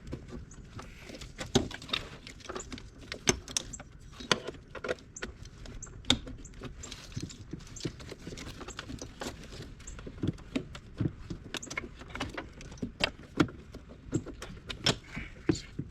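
Metal hand tools clinking and clicking: a ratchet, socket and extension being handled and fitted while working on bolts, in irregular sharp taps.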